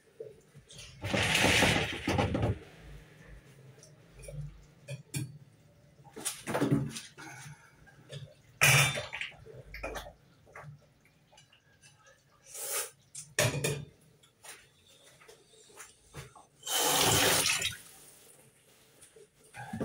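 Cookware handling at a stove: a stainless steel pot lid being lifted and set back and a wooden spoon stirring, heard as several short noisy bursts and clicks over a faint low hum.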